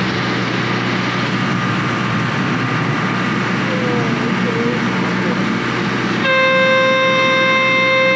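Engine of a small passenger launch boat running steadily under way, with water rushing along the hull. About six seconds in, a boat horn sounds one long, steady blast.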